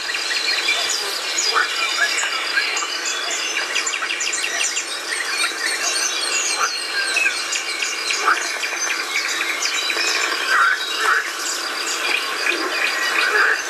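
A dense chorus of many birds singing at once: short chirps, trills and whistles overlapping, with one high note repeated evenly for the first several seconds.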